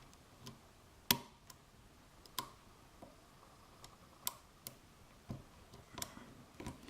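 Faint, irregular metallic clicks of a lock pick and tension wrench working the pins inside a FAC pin-tumbler lock, with the sharpest click about a second in. The pins carry no spools and have no serrations.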